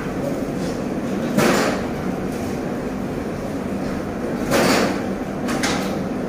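Restaurant room noise: a steady hum with two brief louder whooshes, about one and a half and four and a half seconds in, and a few faint clicks near the end.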